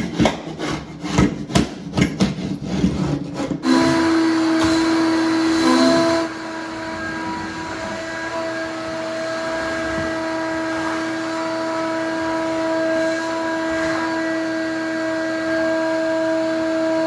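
Long-handled floor scraper scraping a particle-board subfloor in quick strokes, clearing lumps and leftover staples. About three and a half seconds in, an electric motor starts and runs with a steady whine.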